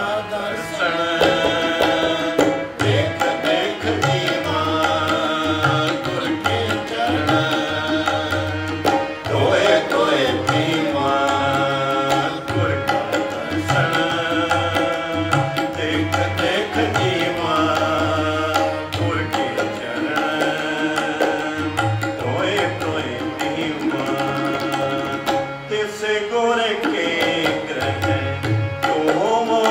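Harmonium playing a sustained melody with tabla accompaniment, the deep strokes of the bass drum repeating underneath.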